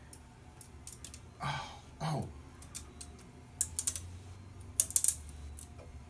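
Quick little clusters of sharp plastic clicks and rattles as small parts are handled and worked loose at the print bed of a delta 3D printer. The loudest groups come about three and a half seconds in and again around five seconds.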